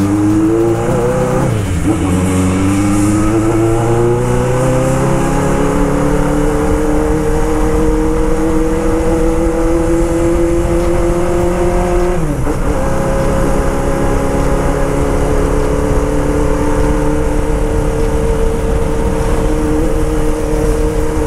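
Honda CB750 Boldor's inline-four engine under hard acceleration, revs climbing through the gears with upshifts about two seconds in and about twelve seconds in, then holding nearly steady. It runs clean with no popping, which the rider puts down to well-tuned carburettors.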